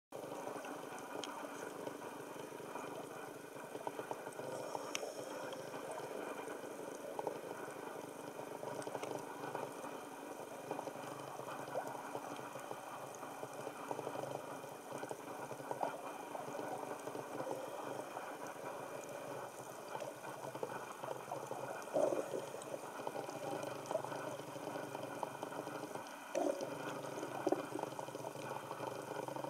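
Underwater ambience picked up by a camera beneath the surface: a steady rushing hiss with scattered faint clicks and a few brief knocks, and a steady low hum joining about three quarters of the way through.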